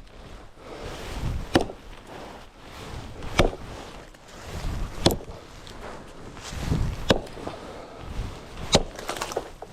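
Dry wood being chopped: five sharp chops about two seconds apart, each after a low rustle of the swing, as a dead tree is cut down.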